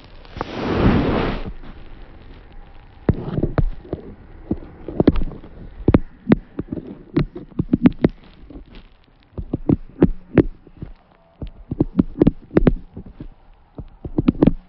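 A short burst of rushing noise about half a second in, then a long run of irregular sharp clicks and taps, some with a brief low ring after them.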